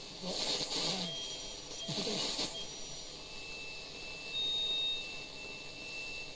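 Unitra Diora Śnieżnik R 502 table radio being tuned between stations: two bursts of static hiss that briefly catch fragments of broadcasts, then steady high whistles coming and going on the noise.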